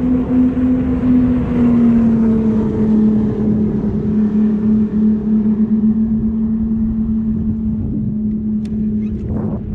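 Motorboat engine droning at a steady pitch that drops slightly about two seconds in and then holds, over a rushing noise of wind and water.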